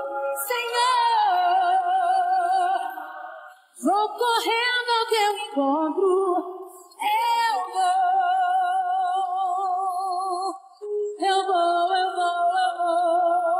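Female voices singing a cappella: wordless held notes with vibrato in harmony, in phrases broken by short breaths.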